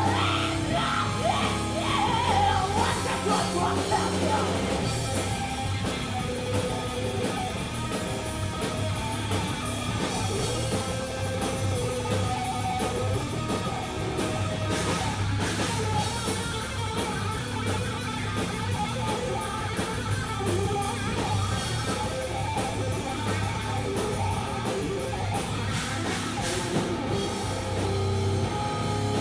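Live hard rock band playing: distorted electric guitar, bass guitar and drum kit, with shouted lead vocals into a microphone near the start.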